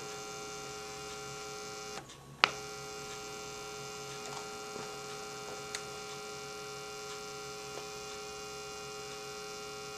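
A 1952 RCA 17T151 television putting out a steady electrical hum through its speaker that the volume control does not change, after its filter capacitors were re-stuffed. About two seconds in the hum cuts out briefly and comes back with a sharp click.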